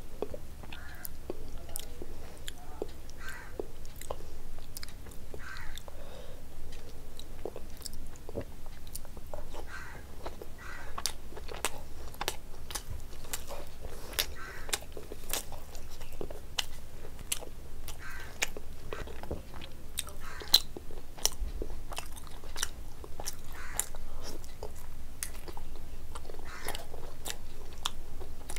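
Close-miked eating sounds: biting and chewing mouthfuls of mutton curry and rice eaten by hand, with many small clicks.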